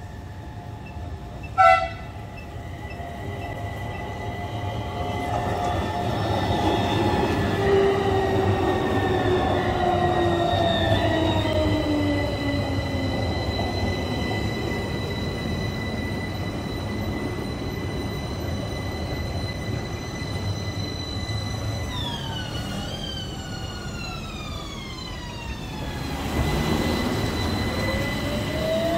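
Beijing Xijiao Line modern tram running into the platform: a short horn beep about two seconds in, then the traction motors' whine falling in pitch as it slows, and near the end a whine rising again as it accelerates away. Steady rain hisses underneath.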